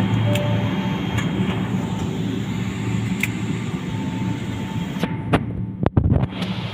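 Airliner cabin noise: a steady low hum and hiss from the engines and air conditioning, with a few light clicks. About five seconds in, the sound changes abruptly with several knocks and the high hiss falls away.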